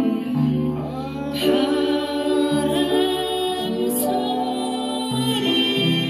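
Upright piano playing slow sustained chords over a bass line, with a singing voice carrying a wavering melody over the accompaniment.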